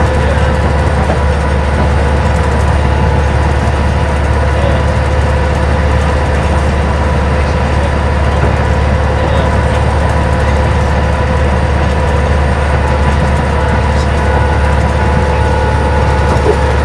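Cabin drone of a 1992 Stewart & Stevenson Apollo T-40 bus cruising at steady freeway speed: its Detroit Diesel Series 50 EGR four-cylinder diesel runs with a deep hum and a faint whine held at even pitch, over road and wind noise.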